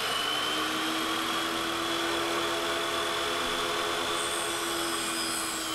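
Bench-top table saw running at full speed with a steady high whine over a dull hum, its motor having just spun up, as a plywood panel is pushed toward the blade for a crosscut.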